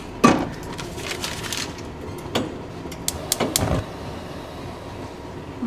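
A stick of butter drops into a stainless steel saucepan with a loud knock about a quarter second in, followed by a few lighter clicks and knocks between two and four seconds in.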